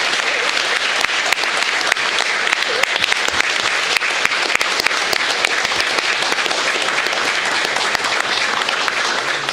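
Audience applauding: many hands clapping together in a steady, sustained round.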